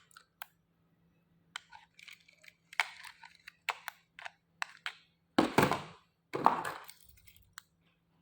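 Handling noises of a car key remote and a locksmith's remote-detection device: scattered plastic clicks and crackles, with two louder crunching rustles about five and a half and six and a half seconds in, over a faint steady electrical hum.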